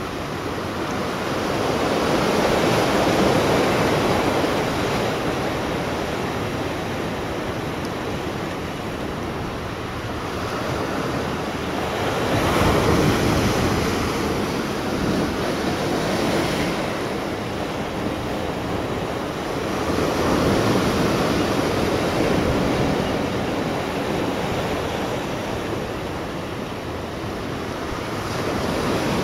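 Sea waves washing in, a steady rushing that swells and fades roughly every eight to ten seconds.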